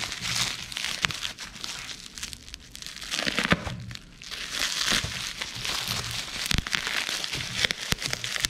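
Plastic bubble wrap crinkling and rustling as hands pull it off a box, with many short sharp crackles throughout.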